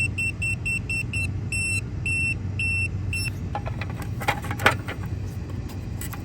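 A run of high electronic beeps, quick and short at first, then longer beeps about two a second, stopping about three seconds in; a few sharp clicks and handling knocks follow over a low steady hum.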